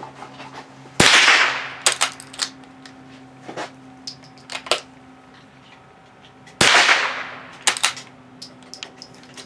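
Two shots from a Marlin Model 25 bolt-action .22 LR rifle, about five and a half seconds apart, each followed by a fading echo. Between them come short metallic clicks as the bolt is worked to eject and chamber a round.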